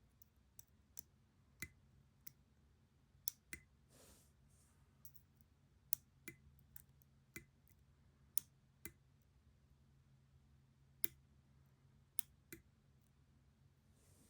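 Small, sharp clicks and taps, about fifteen spread irregularly, from handling the small metal parts of a disassembled pin-tumbler lock core, over a faint steady low hum.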